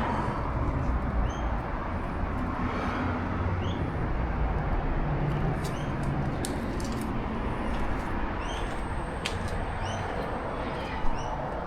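Outdoor ambience: a steady low rumble under short, repeated bird chirps, with a few clicks in the middle and a single sharp knock near the end.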